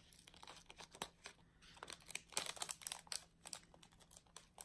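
Small diamond-painting drills poured from a plastic tray into a small plastic bag: a faint, irregular patter of tiny clicks mixed with the bag crinkling.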